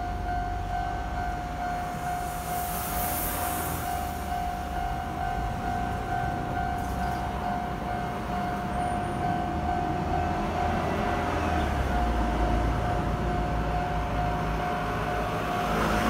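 Japanese railway level-crossing warning bell ringing steadily, one high electronic tone, as the barriers lower: the signal that a train is approaching. A broader rushing noise swells near the end.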